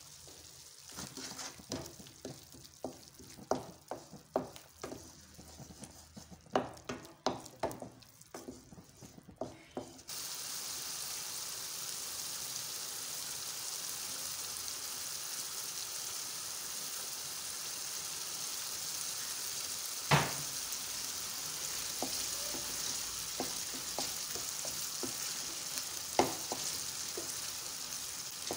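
Tomato sauce cooking in a frying pan, stirred with a wooden spoon: scrapes and knocks of the spoon against the pan, then a steady sizzle that starts abruptly about ten seconds in, with a few sharp knocks of the spoon on the pan, the loudest about twenty seconds in.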